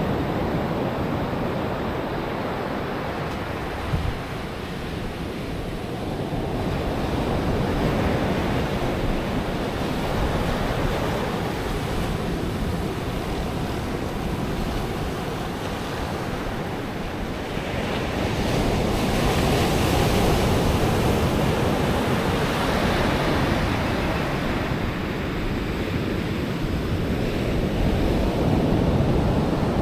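Pacific Ocean surf breaking and washing ashore, rising and falling in slow swells every several seconds, with wind on the microphone. A single brief knock about four seconds in.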